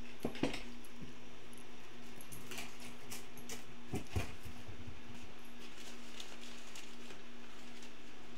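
Faint clicks and taps from handling a small circuit board and touching a soldering iron to its pins, over a steady low hum. Two slightly louder knocks come near the start and about halfway through.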